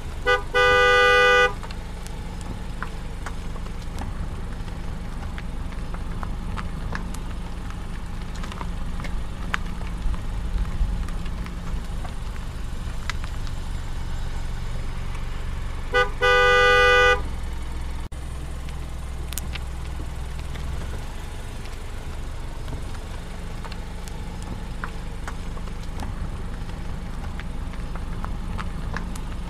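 Car horn sounded twice, about 16 seconds apart, each time a short tap and then a held honk of about a second, signalling a lorry ahead before overtaking. Between the honks, a steady low drone of road and engine noise heard from inside the car.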